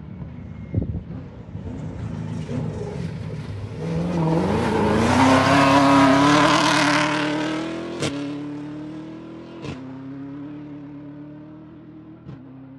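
Off-road race car engine accelerating, its pitch climbing as it comes past, loudest about halfway through, then fading away as it goes off into the distance.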